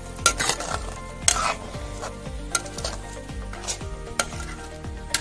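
A spoon stirring cooked rice and sugar in a pan on the heat, scraping and knocking against the pan about once a second, as the sugar cooks down to a syrup.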